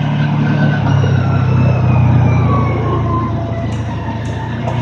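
Kawasaki Teryx S LE side-by-side's V-twin engine running under way. The engine note slides slowly down over a few seconds as it eases off, then picks up again near the end.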